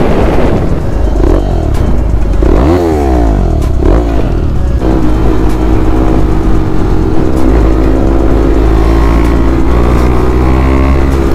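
Motorcycle engine running on the move, its pitch sweeping up and down about three seconds in, then held at a steady note from about five seconds in.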